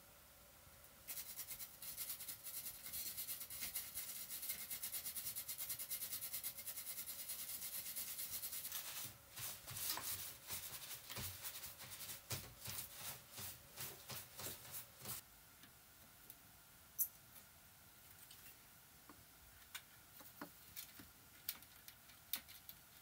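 Fast, even scratching of a tool scrubbing the circuit board for several seconds. It then turns into slower, irregular rubbing as a cloth wipes the board. Near the end there are only a few light clicks.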